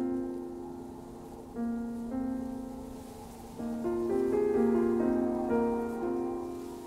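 Piano music from an animated film's score: chords struck every second and a half to two seconds and left to ring and fade.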